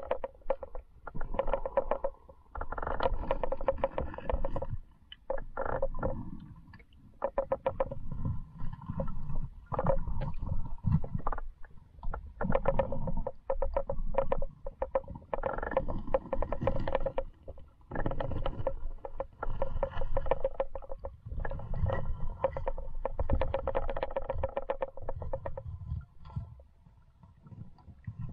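River current heard underwater through a submerged action camera: muffled rumbling and gurgling, dotted with many small clicks and knocks, with a steady hum that comes and goes.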